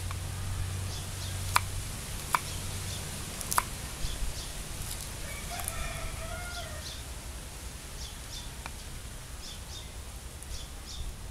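A knife chopping garlic on a round wooden cutting board: a few sharp taps in the first four seconds. Midway, a chicken calls once, about a second and a half long.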